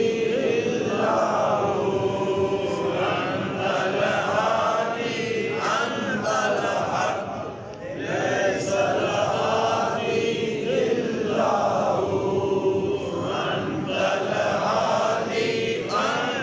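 Voices chanting a devotional recitation in melodic phrases about two seconds long, one after another, with a short break a little before eight seconds in.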